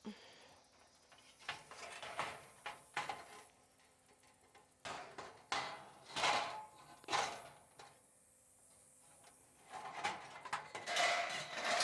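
Scattered knocks and clatter of the parts of a roll-away chicken laying box being handled and flipped over during assembly, with a stretch of rustling and scraping near the end.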